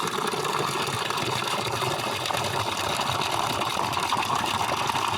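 Water gushing steadily from a solar water pump's discharge pipe into a container during a timed flow test of the pump.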